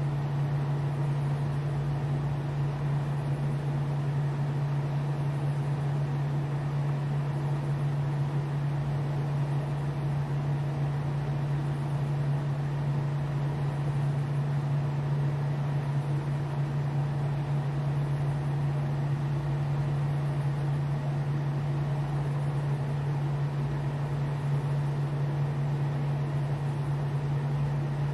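Small motorized turntable running with a steady low electric hum.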